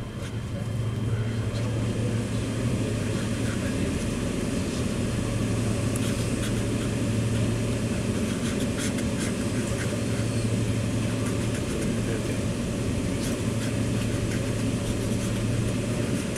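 Steady running noise heard inside a commuter train carriage: a low hum over a rumbling haze, with a few faint ticks and rattles.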